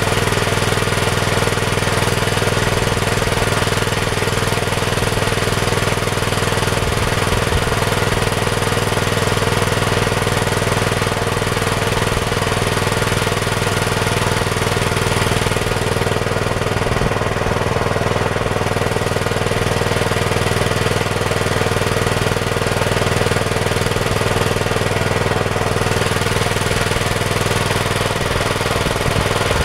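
Small engine of a homemade minitractor idling steadily, its pitch and level holding even throughout.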